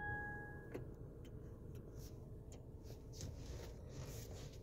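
Short electronic chime from a 2018 Jeep Compass dashboard as the electric parking brake switch is pulled, lasting under a second, followed by a few faint scattered clicks over a low steady hum.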